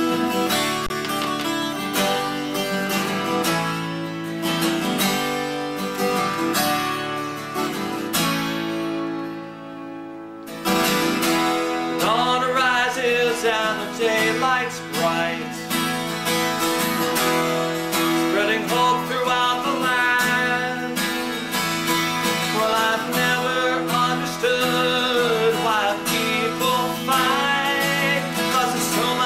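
Man singing while strumming a 12-string acoustic guitar. The first ten seconds are guitar alone; after a brief lull the singing comes in over the strumming.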